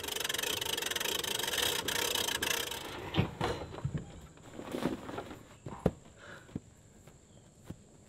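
Pop-up camper's roof and bunk ends being raised: a scraping, rubbing noise for about three seconds, then a few scattered knocks and clunks.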